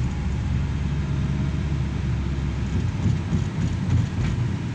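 Engine and road noise of a moving car heard from inside its cabin: a steady low rumble.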